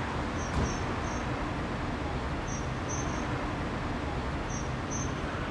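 Short, high chirps in twos and threes about every two seconds, over a steady low rumble.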